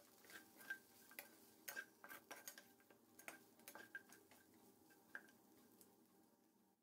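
Metal spatula scraping and tapping against a cooking pan while stirring chicken pieces: faint, irregular clicks and light clinks, several a second.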